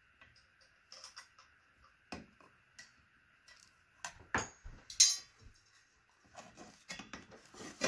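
Scattered light clicks and metallic clinks of a screwdriver turning screws out of a ceiling fan's metal blade arm at the motor housing. There is a louder clank about four seconds in and another about five seconds in that rings briefly, as the screw and arm are handled.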